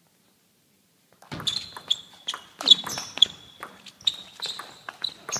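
Table tennis rally: the celluloid ball clicking sharply off bats and table in quick, irregular succession, starting about a second in after a near-silent moment.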